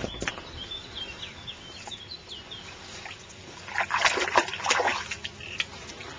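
A bird gives a quick run of short, high, falling chirps. About four seconds in comes a burst of splashing and rustling in the bankside grass as a brown trout is let go at the water's edge.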